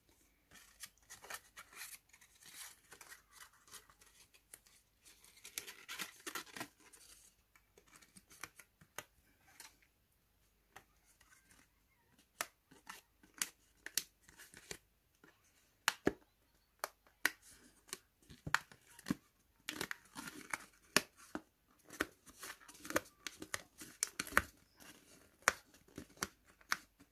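Small scissors snipping repeatedly at cardstock and double-sided tape, many short sharp snips, with paper rustling and crinkling in between. The snips come thicker and louder in the second half.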